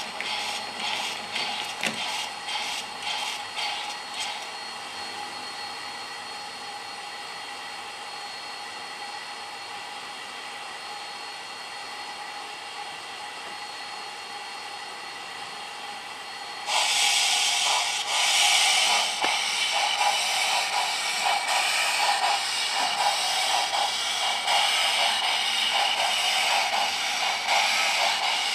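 Sound decoder of an HO scale Union Pacific Big Boy model steam locomotive. Rhythmic hissing for the first few seconds gives way to a quieter steady hum. A little past halfway a loud steam hiss starts suddenly and carries a regular chuffing beat as the locomotive pulls off the turntable.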